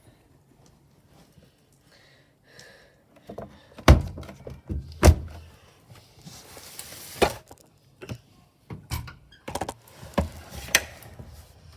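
A series of separate knocks and thuds, about five sharp ones spread out with quiet between them, and a short hiss about halfway through.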